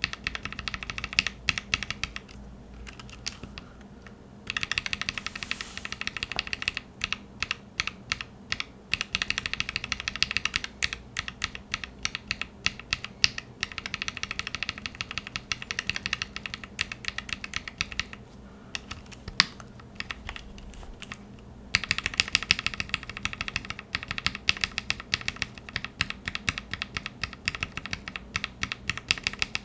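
Linear mechanical keyboard switches on a Satisfaction75 with an FR4 plate, pressed in quick runs of sharp clacking keystrokes. The sound changes abruptly about four seconds in and again around twenty-two seconds in, as the test cuts from one switch's recording to the next.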